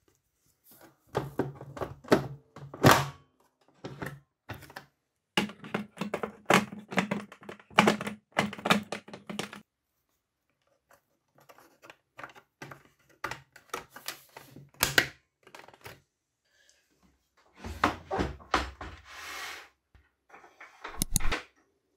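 Clusters of hard plastic clicks and knocks: D-cell batteries being pushed into a toy sewing machine's plastic battery compartment and the plastic case being handled and turned over, with short pauses between.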